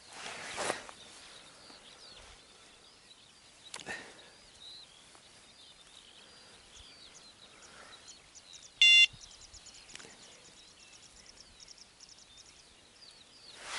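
Faint outdoor ambience with small birds chirping, and one short electronic beep about nine seconds in, the loudest sound, from a fishing bite alarm registering a touch on the line.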